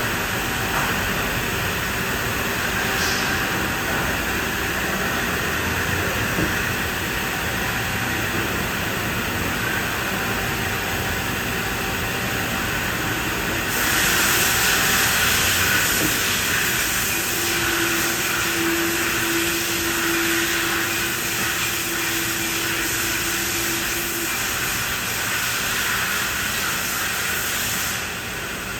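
Okuma 2SP-35HG twin-spindle CNC turning center running, a steady mechanical noise with hiss. About 14 s in a bright hiss grows louder, and a steady hum-like tone sounds for several seconds in the middle of that stretch.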